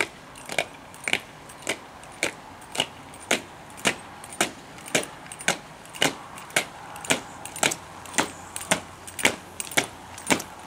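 Boots of a three-man fire-brigade colour party marching in step on asphalt: sharp, even footfalls, about two a second.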